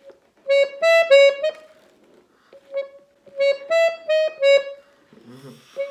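Guerrini piano accordion playing short, detached notes in two halting phrases of four or five notes each, with a lone note between them: a learner picking out the opening notes of a tune one key at a time.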